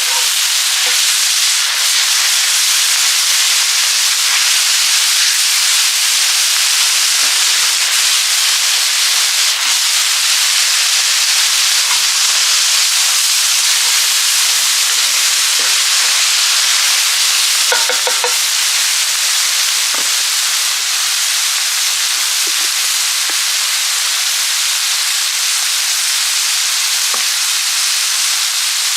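Chicken hearts sizzling steadily in a pan over a wood fire.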